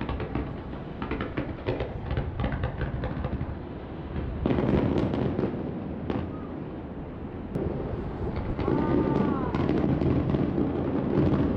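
Fireworks exploding: a dense run of bangs and crackling over a continuous low rumble, growing heavier from about four seconds in and again from about eight seconds.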